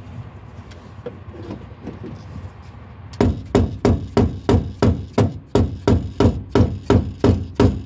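Rapid hammer taps on a screwdriver set against the metal fuel-pump lock ring, about four strikes a second, starting about three seconds in. The tapping drives the ring round over its hump to lock the fuel pump into the tank.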